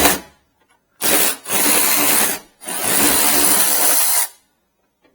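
Cordless power drill/driver with a socket spinning, run in four bursts, the last about a second and a half long, to back out a fastener holding the headlight.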